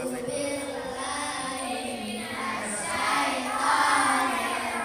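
Two children singing into microphones, with long held notes, growing louder a little after halfway.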